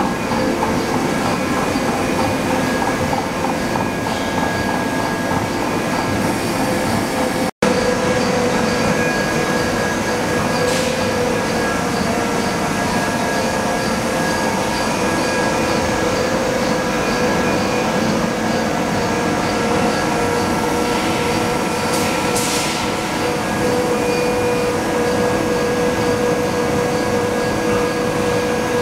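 Hot ring rolling mill running: a steady mechanical rumble with several steady whining tones and a few brief high squeaks a little past the middle. The sound cuts out for an instant about eight seconds in.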